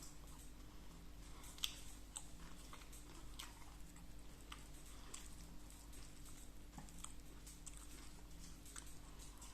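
A person chewing food with small wet mouth clicks, with one sharper click about a second and a half in.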